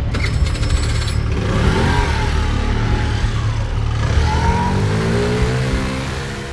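Scooter engine revving as the scooter pulls away and accelerates, its pitch climbing steadily over the last few seconds.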